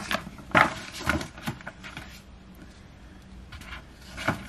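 Paper handling: a few short rustles and taps as photobook pages are turned, four in quick succession in the first second and a half and one more near the end.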